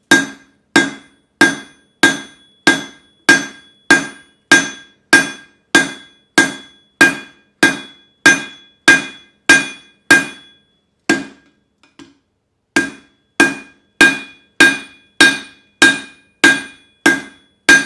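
Hand hammer striking red-hot leaf-spring steel over the edge of an anvil, forging an offset. The blows come steadily, about one and a half a second, each with a ringing metallic tone. Just after halfway they pause for about two seconds, with a couple of light taps, then resume.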